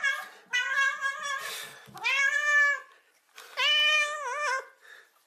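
Black-and-white domestic cat meowing: three long meows in a row, the last one wavering in pitch near its end.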